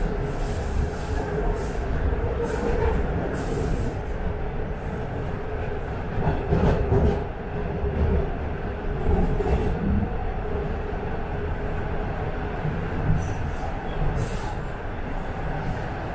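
Toronto subway train on TTC Line 1 running along the track, a steady rumble with high wheel squeals that come and go.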